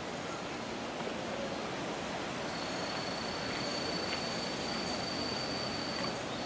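Steady outdoor background hiss in a forest, with no voices. A thin, steady high-pitched tone joins about two and a half seconds in and holds.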